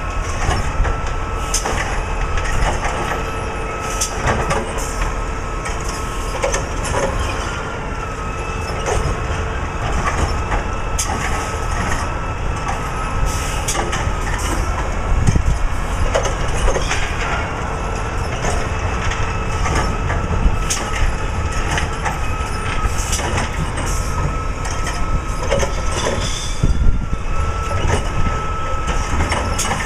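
Side-loading recycling truck running, its diesel engine rumbling steadily under a constant whine, with frequent knocks and clanks as recycling carts are picked up and emptied.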